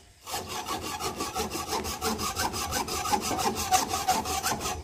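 Handsaw cutting through a fallen tree's wood in rapid, even back-and-forth strokes, starting a moment in and stopping near the end.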